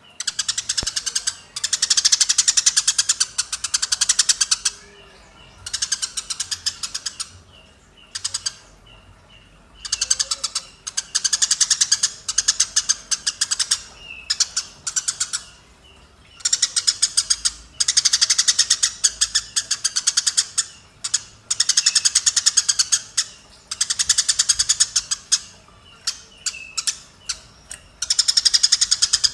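Eurasian tree sparrows taking a sand bath. The sound comes in repeated bouts, each one to three seconds long, of a rapid pulsing buzz, with soft short chirps in the pauses between bouts.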